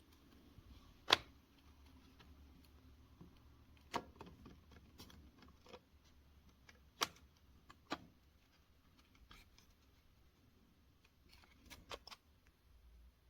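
Scattered sharp clicks and knocks of small hard objects being handled: a loud one about a second in, others spread through, and a quick cluster near the end, with faint rustling between.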